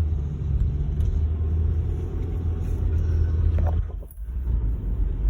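Car driving, heard from inside the cabin: a steady low rumble of engine and road noise, which dips briefly about four seconds in.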